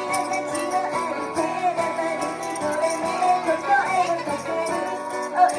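Christmas song music from a live medley performance, playing steadily.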